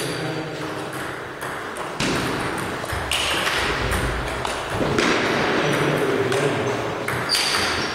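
Table tennis rally: the celluloid ball clicking sharply off the rubber paddles and bouncing on the table, in a series of irregular clicks, with the light hall echo.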